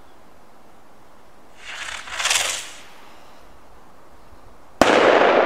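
Circoblitz TR 2 firework going off: a hissing whoosh swells and fades about two seconds in, then a single sharp bang near the end, its echo dying away slowly.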